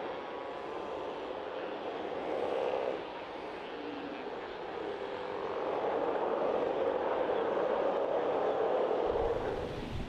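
Steller sea lion rookery: many sea lions roaring at once in a steady, droning din that grows louder about halfway through.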